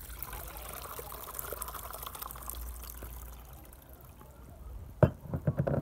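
Coconut milk and soaked grated coconut pouring from a bowl into a plastic sieve, splashing and trickling through the mesh, tailing off after about three and a half seconds. About five seconds in comes a sharp knock, the loudest sound here, followed by a few quicker knocks.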